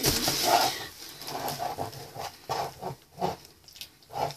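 Vinegar glugging out of a white plastic jug as it is poured into a clay volcano: a short rush of noise at the start, then irregular gulps.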